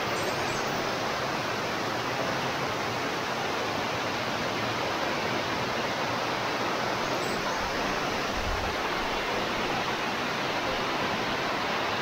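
Steady, even rush of water from a tall waterfall and the stream cascading over the rock slabs below it.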